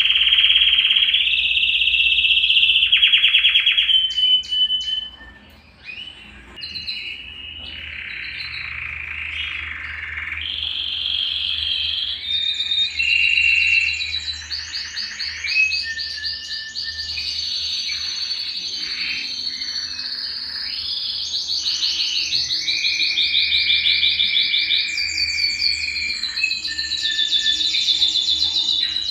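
Domestic canary of the type sold as the Belgian canary, singing a long song of fast trills and rolling phrases that shift in pitch, with a short break about five seconds in.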